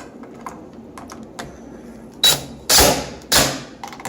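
A cordless screw gun driving a screw into a refrigerator door handle in short bursts. A few faint clicks come first, then three quick bursts in the second half.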